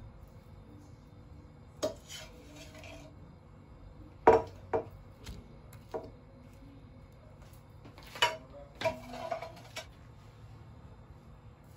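Plastic spatula knocking and scraping against a ceramic serving platter as fried eggs are slid onto toast: a few scattered sharp clacks, the loudest about four seconds in, then a short cluster of clatter near the end.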